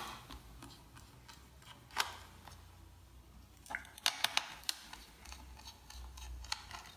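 Precision screwdriver clicking against the screws of a laptop's small circuit board as they are loosened: a few sharp, separate clicks, with a quick run of them about four seconds in.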